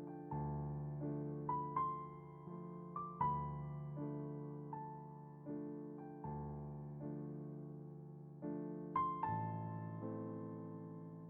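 Slow, gentle piano music: single notes and held chords, each struck softly and fading away.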